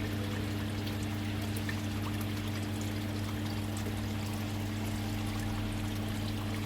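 Water pouring and trickling steadily into a koi pond or tank, over a steady low hum.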